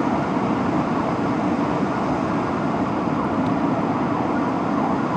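Steady road traffic noise from the street: the fire engine's diesel running as it moves through the intersection, blended with the general rumble of city traffic, with no clear siren wail.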